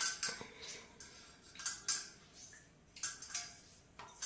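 Hands shaping moistened bread slices over a steel bowl: about five short, soft handling noises, squelches and light clinks against the bowl, spread across a few seconds.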